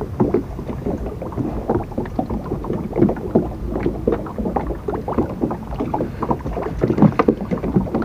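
Water lapping and splashing against a small boat, with a dense run of short irregular knocks.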